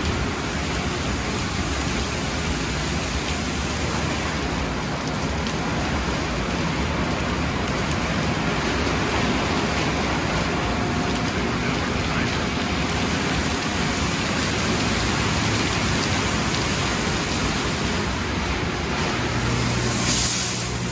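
MacNeil tunnel car wash in operation: spinning foam wraparound brushes slapping wet car panels amid water spray, a steady rushing hiss. Near the end a steady low hum joins in and the brush noise briefly surges.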